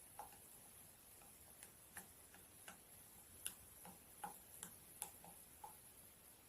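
Faint, irregular light clinks of a mixing spoon against the jar as the mixture is stirred, about a dozen small taps.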